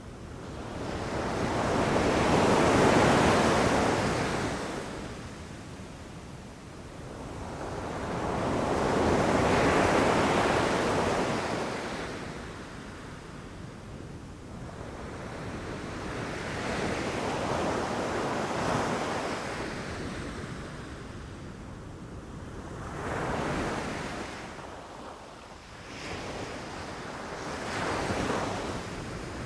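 Ocean surf: waves breaking on a beach and washing up the shore, each one a slow swell of rushing noise that rises and dies away, about every five to eight seconds, the first two the loudest.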